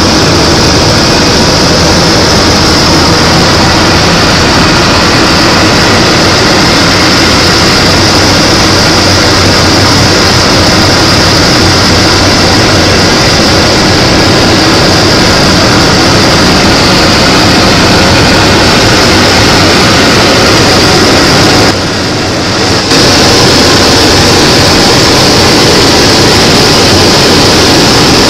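Steady drone of a propeller aircraft's engines and propellers heard inside the cockpit during the approach. It dips briefly in level about three-quarters of the way through.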